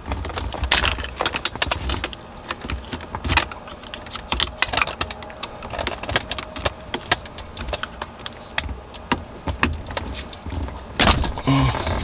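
Irregular clicking and rattling of the plastic wiper switch and steering-column trim on a BMW E36 being pried at with a pick to release its locking tabs, with a few louder clicks, the loudest about eleven seconds in.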